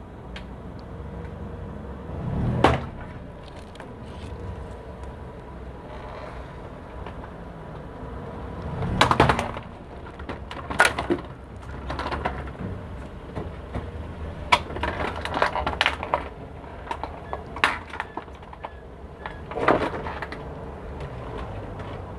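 A car tyre crushing a plastic tray filled with water and flower petals: a series of sharp cracks and snaps of the plastic breaking, the loudest about two and a half seconds in and again about nine seconds in, over a low steady engine hum.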